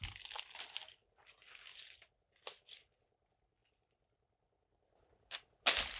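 Footsteps crunching on dry leaves and twigs in short bursts, then a pause of a couple of seconds, and a sharp click followed by a louder crackle near the end.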